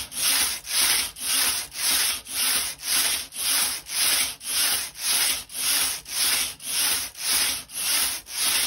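Knitting machine carriage slid back and forth across the needle bed, knitting one row per pass: a steady, rhythmic swish about twice a second.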